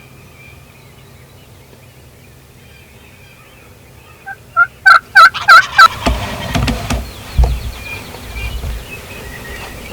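Wild turkey calling: after about four quiet seconds, a run of about six loud, evenly spaced notes, then a few seconds of rattling gobble and low rumble that trails off.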